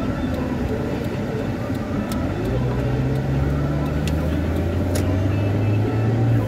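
Car engine and tyre noise heard from inside the cabin while driving. About two and a half seconds in, a deeper engine hum comes in and rises slowly as the car speeds up along a straight road after a roundabout.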